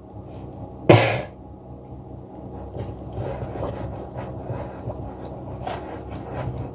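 Cake batter stirred by hand in a mixing bowl: a steady, soft scraping and slopping of the utensil through the thick mix. There is one short, loud burst about a second in.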